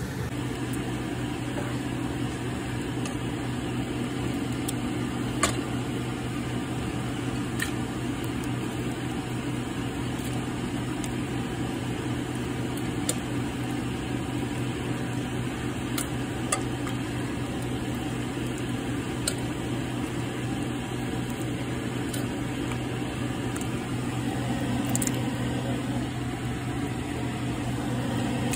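Steady machine hum with a low drone, unchanged throughout, with a few faint clicks scattered through it.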